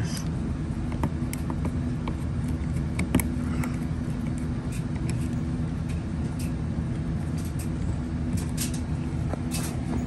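A steady low machine hum, with scattered light clicks and taps from a screwdriver working a wire terminal on a bus bar stud.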